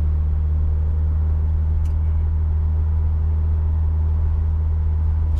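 Mitsubishi Lancer Evolution IX's turbocharged inline-four engine and road noise heard from inside the cabin while driving: a steady low drone.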